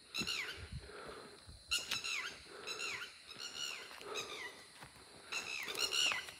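Wild animal calls: a series of short, high cries, each sliding downward in pitch, repeated about six times with some overlapping, loudest near the end.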